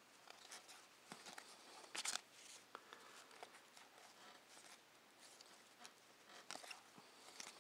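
Faint rustling and light clicks of trading cards being handled and flipped through one by one, with a slightly louder pair of rustles about two seconds in.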